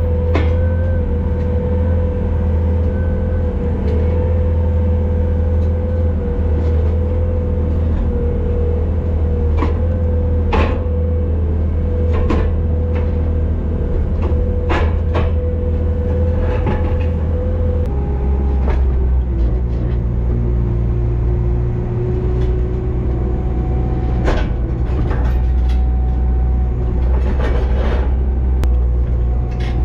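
Skid steer engine running steadily, heard from inside the cab, with scattered metal clanks and knocks as the loader's attachment plate is worked to take on pallet forks. The engine note drops a little past halfway through.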